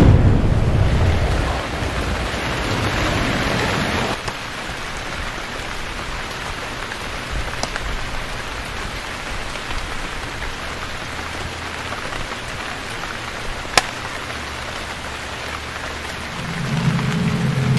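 Steady rain falling, heard as an even hiss. A low rumble fades out about four seconds in, there is a single sharp click later on, and a low drone comes in near the end.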